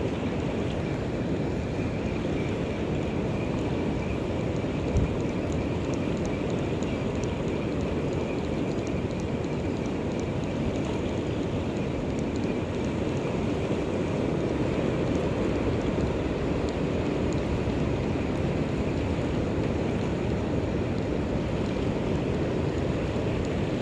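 Steady rush of sea surf washing over a rocky reef shore, with one brief knock about five seconds in.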